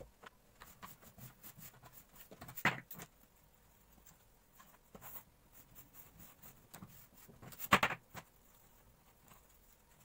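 Bamboo slat placemats being handled, wiped with a sponge and rolled up: light clicking and rattling of the wooden slats, with two louder clattering bursts, about three seconds in and near eight seconds.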